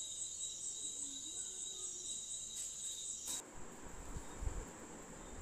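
Steady, high-pitched insect trill, finely pulsing, which drops away abruptly a little over three seconds in. A rushing noise and a few low thumps follow.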